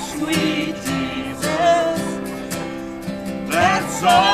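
Acoustic guitar strummed in a steady rhythm, accompanying singing.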